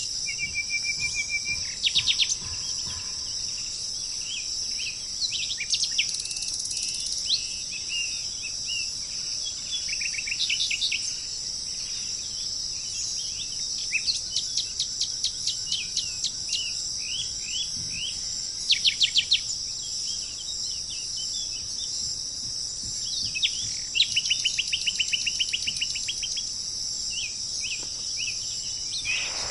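Wild birds calling: short trills and runs of quick repeated chipping notes, several in a row, over a steady high drone of insects.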